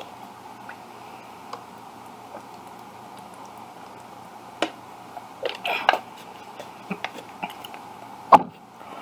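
Handling and drinking from a plastic water bottle: scattered small clicks and crinkles, a short cluster of drinking sounds around the middle, and one sharper knock near the end.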